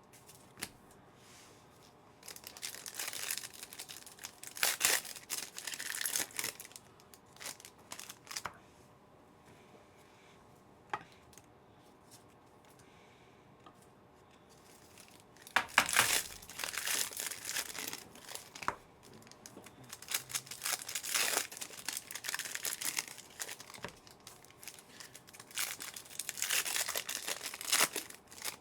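Trading card pack wrappers being torn open and crinkled in several bouts of rustling, with a quieter gap of several seconds in the middle broken by a single sharp click.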